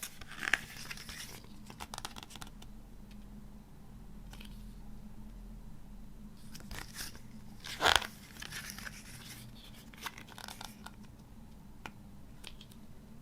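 CD packaging being handled and unwrapped: paper and plastic rustling and crinkling, with scattered clicks and one louder sharp crackle about eight seconds in.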